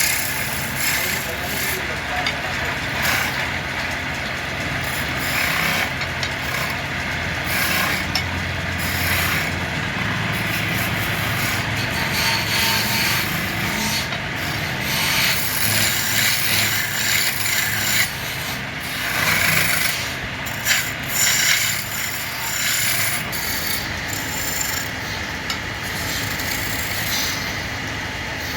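Wood being shaped on a lathe: a tool scrapes against the spinning wood in continuous rough strokes that swell and ease, over a faint steady hum.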